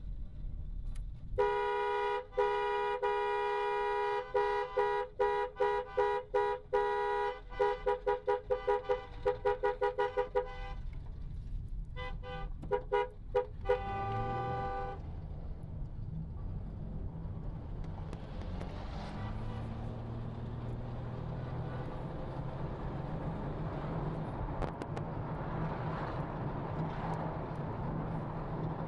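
Two-tone car horn honking: a long blast, then a run of short toots that come faster and faster, a few more toots and a last longer blast. Then a car's engine and road noise heard from inside the cabin as it pulls away, the engine note rising for a few seconds.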